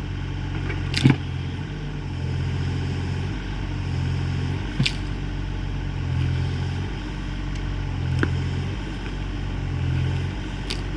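Kubota excavator's diesel engine running under varying load, its note swelling and easing as it digs, with three sharp clanks along the way.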